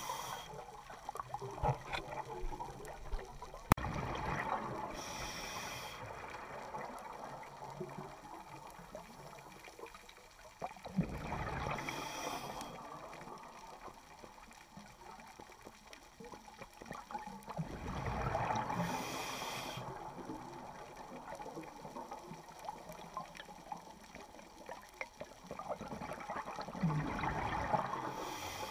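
Scuba diver breathing underwater through a regulator: a rush of exhaled bubbles about every seven seconds, four times, with scattered sharp clicks between.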